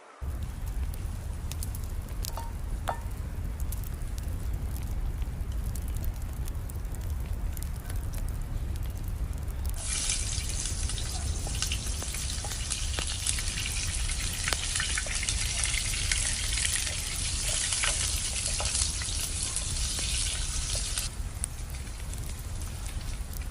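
Food frying in a pan over a campfire: a crackling sizzle starts about ten seconds in, stops a couple of seconds before the end, and starts again right at the end. Under it throughout there is a steady low rumble with scattered crackles.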